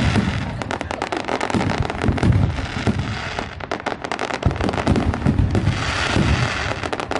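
Fireworks going off in rapid succession: a dense run of overlapping bangs and crackles, with hissing bursts near the start and again about six seconds in.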